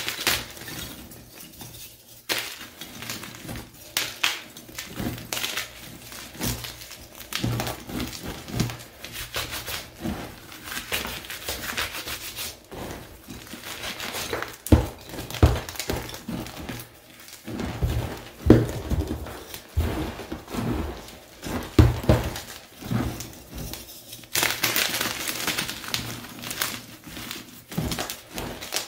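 Picsil gym chalk blocks, plain and pink-dyed, being crushed and crumbled by hand, with irregular dry crunches and cracks of chalk breaking. Near the end comes a few seconds of denser, hissing crumbling.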